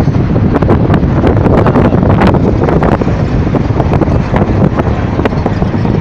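Wind rushing over the microphone of a phone held at a moving vehicle's window, over steady low engine and road noise, with frequent small rattles and knocks.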